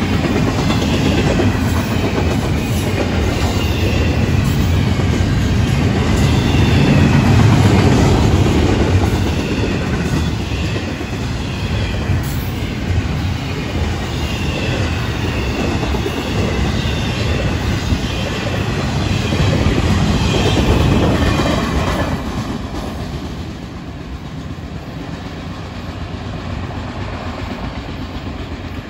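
Florida East Coast Railway freight train's intermodal cars rolling past close by: a steady rumble and clatter of wheels over the rails, with a faint whine of wheel squeal. The sound drops off about 22 seconds in, as the train passes and recedes.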